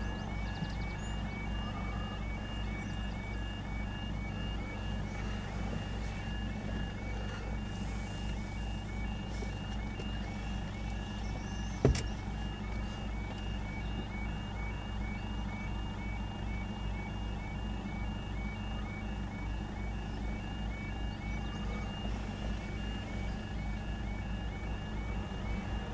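A UK level-crossing audible warning alarm sounding with the barriers down: a short warbling tone repeating steadily, over a low steady hum. A single sharp click comes about halfway through.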